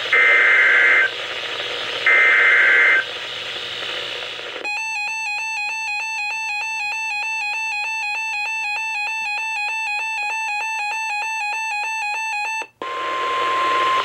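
NOAA Weather Radio SAME alert header: two one-second bursts of two-tone digital data chirping. From about four and a half seconds in, weather alert radios' built-in alarm gives rapid, warbling electronic beeping for about eight seconds. It cuts off sharply near the end into a steady single-pitch warning tone, signalling the start of a new warning broadcast.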